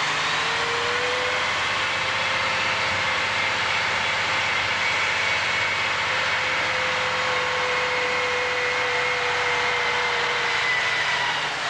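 Mack dump truck driving, its engine and drivetrain running steadily with road noise. A whine rises in pitch over about the first second and then holds steady.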